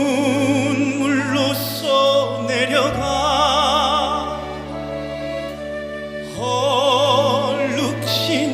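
Background music: a slow song with a voice holding long notes in a wide vibrato over sustained low bass notes. The bass drops lower about three seconds in and comes back up about six seconds in.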